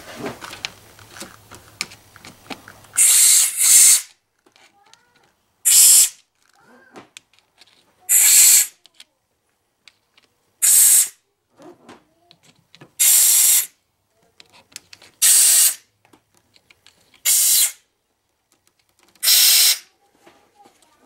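Compressed-air blow gun fired in short blasts into the head bolt holes of a Chevy 3400 V6 block, clearing them out before the head gasket and head go on. There are about nine sharp hissing blasts, roughly one every two seconds, the first two back to back.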